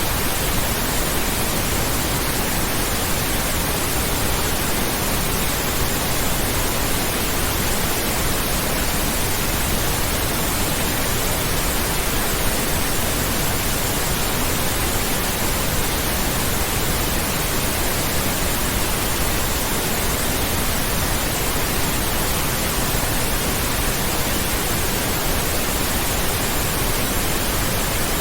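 Steady synthetic pink noise: an even, unbroken hiss that does not change.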